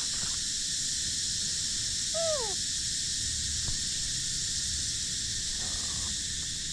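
A single short call that falls in pitch, from an animal, a little over two seconds in, over a steady high hiss.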